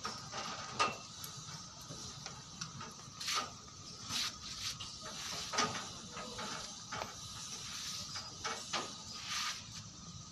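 Scattered knocks, clicks and rustles of handling at irregular intervals, over a steady background hiss and hum.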